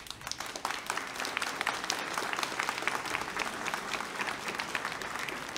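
Large audience applauding: dense, steady clapping that starts suddenly and keeps going.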